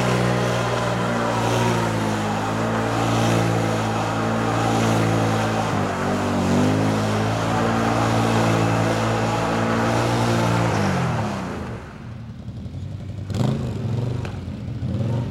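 Can-Am Renegade 800 ATV's V-twin engine held at high revs as the rear wheels spin on the ice, with a brief dip about six seconds in. About ten seconds in the revs drop away, then one short blip of the throttle near the end.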